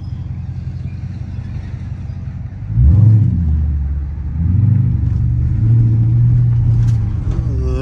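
Chrysler 300S's 5.7 L Hemi V8 through a mid-muffler and resonator delete with Carven R-Series performance mufflers: a deep, steady idle, then about three seconds in the engine comes up sharply and loud, eases briefly, and runs loud again for a few seconds as the car pulls off.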